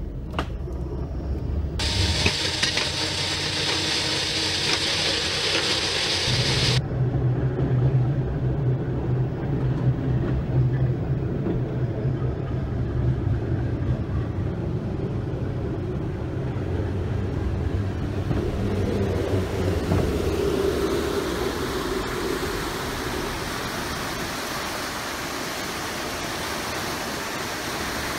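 Jeep hy-rail vehicle rolling along railroad track: a steady low rumble of its engine and rail wheels on the rails, with a loud hiss over it during the first few seconds. Near the end the rumble gives way to the rushing of river water.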